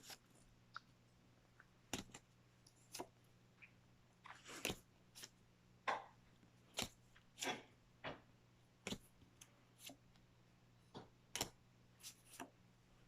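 Pokémon trading cards being flipped through one at a time: soft, irregular flicks and slides of card on card, roughly one a second.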